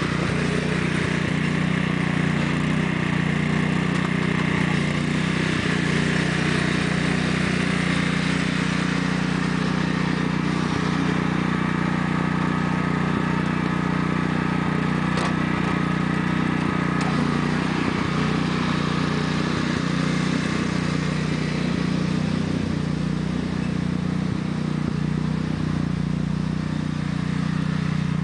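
A 1993 Sears Craftsman lawn tractor's 14 hp Kohler single-cylinder engine running steadily at constant speed while the tractor drives about on grass.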